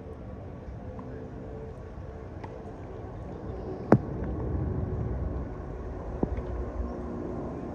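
Distant jet airliner passing high overhead: a steady low rumble that swells about halfway through. A sharp click about four seconds in is the loudest moment, with a smaller one later.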